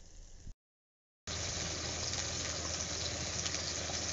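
Spiced onion masala sizzling in hot oil in a clay pot over a wood fire: a faint steady sizzle that cuts out about half a second in, then returns much louder and steady.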